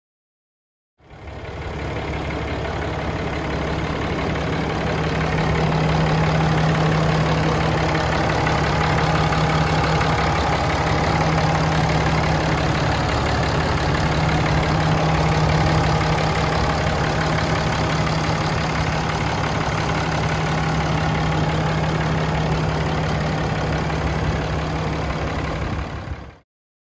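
The 2017 Ram 2500's Cummins 6.7-litre straight-six turbo diesel idling steadily. It starts abruptly about a second in and cuts off near the end.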